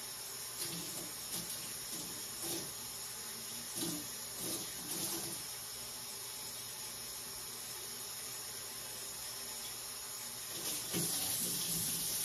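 Water at a kitchen sink as a plastic SodaStream carbonating bottle is rinsed: a steady hiss with a few short knocks and sloshes in the first five seconds. The water gets louder from about eleven seconds in.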